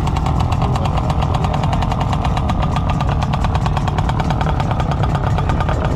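Motorcycle engine running steadily at low revs, with a fast, even train of firing pulses over a low rumble.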